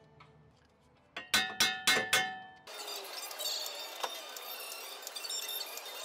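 Four loud, ringing metal-on-metal strikes about a quarter-second apart, a little over a second in, as the steering knuckle is knocked free of the lower ball joint stud. After that comes a steady hiss with light clinks.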